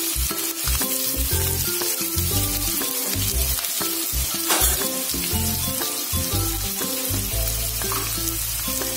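Sliced onions and green chillies frying in hot oil in a pan, a steady sizzle, under background music with a bass line and held notes.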